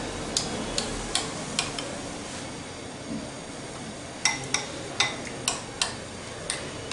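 Metal spoon clinking against a glass bowl while turning a potato ball in beaten egg: four light clinks in the first second and a half, then a quicker run of about five from around four seconds in, and one more near the end.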